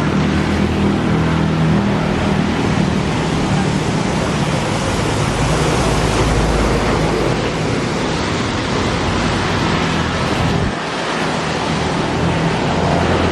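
Steady loud rushing noise with a low drone underneath, easing for a moment about eleven seconds in.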